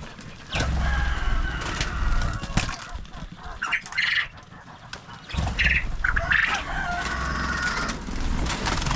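Chickens clucking and calling, with two sharper squawks a little before and after the middle. Under the calls are long stretches of rustling, rumbling noise.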